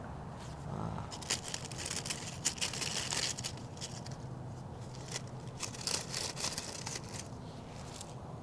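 Rustling and crinkling of a hand in a thin plastic glove handling dry plant debris among succulents: a string of short, crisp crackles, densest in the middle.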